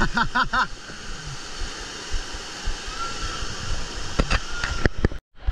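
Steady rush of water pouring and splashing into a water-park pool, with brief voices in the first half second; it cuts off abruptly just before the end.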